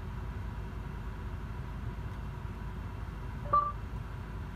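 Steady low rumble inside a moving 2011 Kia Forte's cabin. About three and a half seconds in, the Android head unit gives a short electronic beep as its voice assistant opens to listen for a command.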